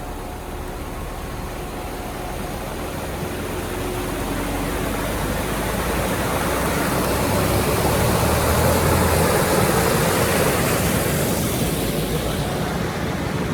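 A steady rushing noise that swells to its loudest about eight to eleven seconds in, then eases a little toward the end.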